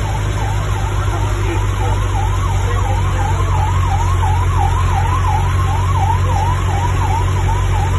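Emergency vehicle siren yelping, its pitch sweeping rapidly up and down about three times a second, over a steady low engine hum.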